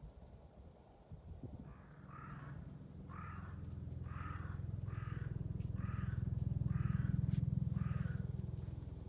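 A crow cawing seven times, about once a second, over a low steady drone that swells and then eases off.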